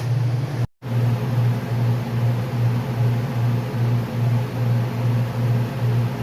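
Lawn mower engine running steadily, a low hum pulsing about twice a second, with a brief cut in the sound just under a second in.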